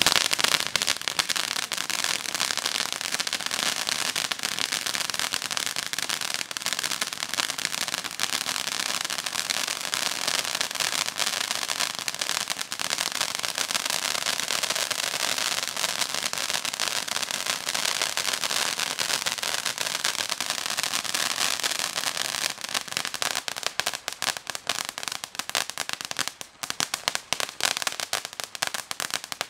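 Dominator Insane Intensity 500g firework fountain burning with a dense, continuous crackle. Over the last few seconds the crackle thins into more separate pops.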